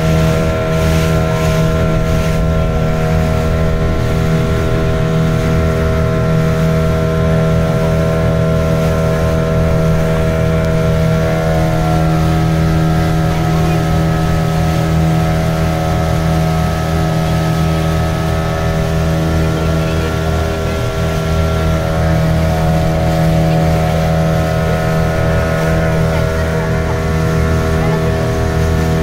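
Motorboat engine running steadily at cruising speed, heard from on board as an even drone over the rush of the water. The drone rises slightly in pitch about eleven seconds in.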